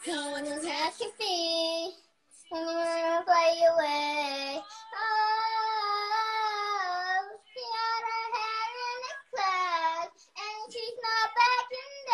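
A young girl singing solo, unaccompanied: phrases of held, gently bending notes broken by short pauses for breath.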